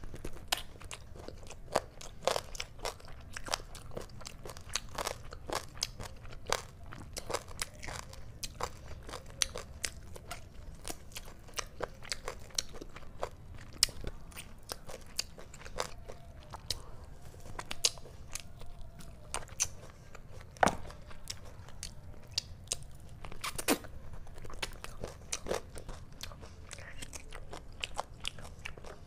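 Close-up chewing and biting of chicken leg meat eaten off the bone by hand: a steady run of irregular wet mouth clicks and smacks, several a second.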